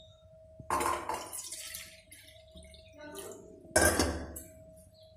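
Water poured from a steel bowl into an aluminium pressure cooker of rice and peas, splashing in twice: about a second in and again near four seconds. A faint steady hum runs underneath.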